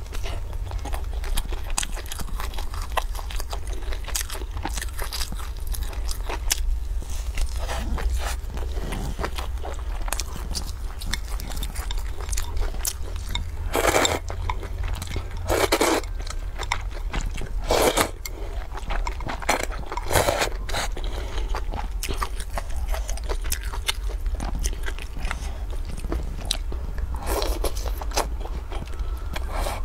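Close-up eating sounds: crunchy biting and chewing with wet mouth clicks, broken by several louder slurps of glass noodles and broth in the middle and toward the end.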